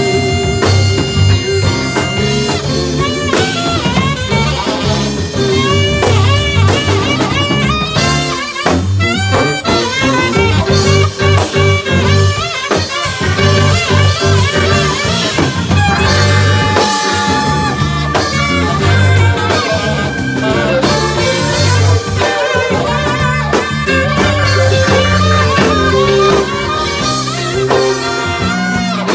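Live blues-jazz band playing: saxophone carrying the melody with bends over electric guitar, bass and a drum kit keeping a steady beat.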